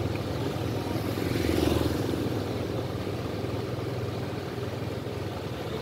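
Engine running steadily, swelling louder for a moment about a second and a half in, as if a vehicle passes close by.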